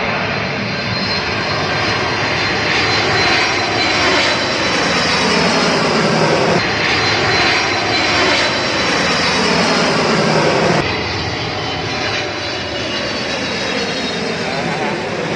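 Airplane engine noise, loud and continuous, with tones that slide downward in pitch through the middle as the aircraft passes. About eleven seconds in, the sound suddenly drops a little and changes, as at a cut between recordings.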